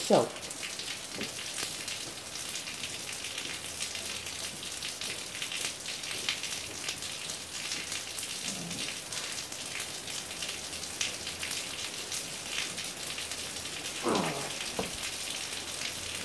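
Heavy rain pouring down on pavement and grass, a steady hiss full of fine drop ticks. Two short sounds slide down in pitch, one at the very start and one near the end.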